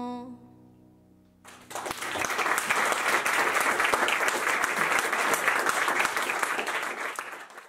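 The song's final held note fades out, and after about a second of quiet an audience breaks into applause. The applause runs on evenly and cuts off suddenly near the end.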